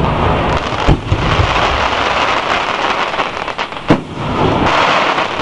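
Aerial fireworks shells bursting: two sharp bangs, about a second in and about four seconds in, with a continuous crackling hiss between them.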